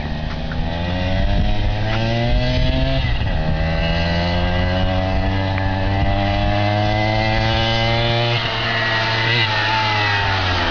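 Yamaha Chappy 80cc minibike's freshly rebored two-stroke engine on a test run, revving up and climbing in pitch. The pitch dips sharply about three seconds in, climbs again, then falls away from about eight seconds in as the revs drop.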